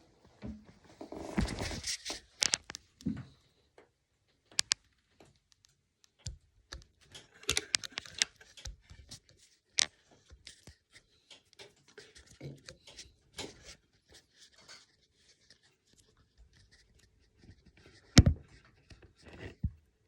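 A phone being handled and set in place: scattered scrapes, taps and knocks close to its microphone, with one loud knock near the end.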